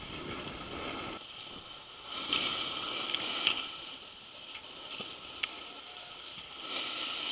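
Snowboard sliding and scraping over snow, with a louder scraping stretch about two to three and a half seconds in and a few sharp clicks later on.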